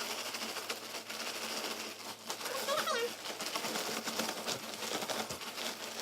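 Puppy chow snack mix of dry cereal and pretzels rattling and rustling in a plastic bag, a dense, fast crackly clatter that keeps going.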